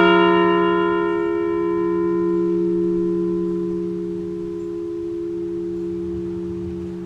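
A large bell ringing on after a single strike and slowly dying away; its higher overtones fade within about three seconds while the low hum carries on. It is tolled once for each deceased veteran whose name is read out.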